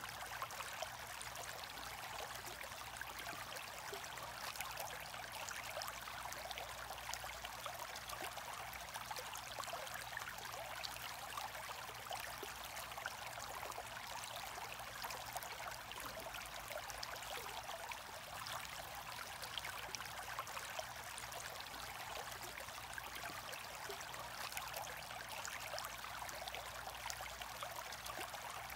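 Aquarium aeration bubbling: a steady stream of air bubbles rising through the tank water and popping at the surface, with a constant trickling and fine crackle. A low steady hum runs underneath.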